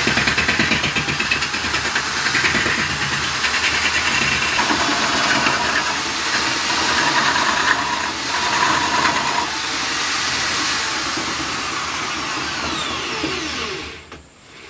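Drill-powered wood lathe running steadily at speed, then winding down with a falling pitch and stopping near the end.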